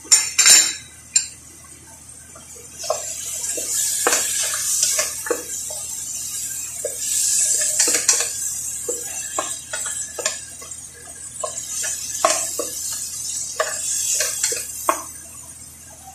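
Wooden spoon stirring squid and onions in a stainless steel pot, scraping and knocking against the pot over the sizzle of frying. A few sharp knocks in the first second, then the sizzle comes in surges with each stir.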